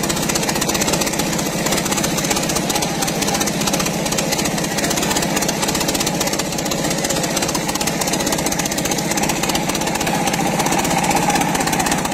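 Small diesel engine of a water pump running steadily, with a fast, even beat.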